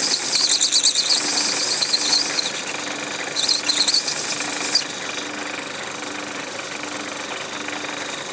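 Small lathe running steadily with a low hum that pulses about once a second. A high, wavering squeal comes from the cutting tool on the spinning workpiece, stops about two and a half seconds in, and returns briefly for about a second and a half.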